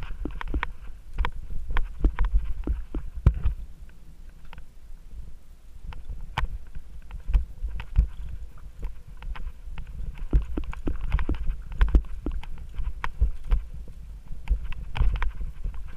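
Mountain bike riding over a rough dirt trail: many sharp knocks and rattles from the bike jolting over bumps, over a low thumping rumble. It eases off for a couple of seconds about four seconds in.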